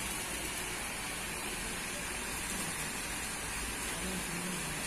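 Steady outdoor background noise, an even hiss and rumble, with faint voices in the background about four seconds in.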